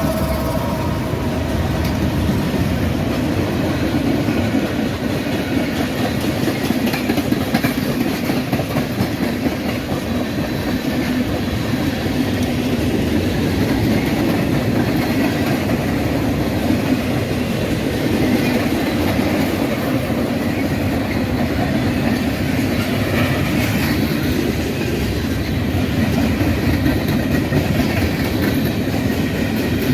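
Freight train rolling past at close range, its wheels running steadily on the rails with a clattering rumble. The tail of a horn blast fades out right at the start.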